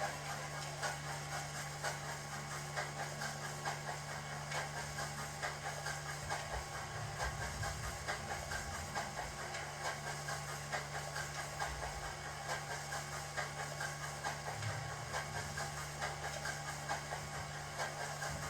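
Steam locomotive sounds from the DCC sound decoder of an SDS Models K class model loco, played through its small onboard speaker: regular exhaust chuffs over a steady hiss, with a low hum underneath.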